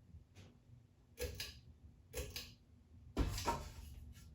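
Light clicks and knocks, about one a second, with the loudest a little after three seconds in, made by handling a ceiling fan's parts.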